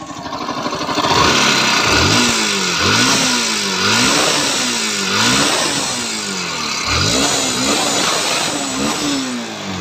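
Bajaj Pulsar NS 160 FI motorcycle's single-cylinder engine revved repeatedly, its pitch rising and falling with each blip of the throttle, over a loud rough mechanical noise. This is the very bad engine sound the owner brought the bike in for.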